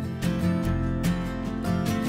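Background music led by strummed acoustic guitar, with a steady beat in a country style.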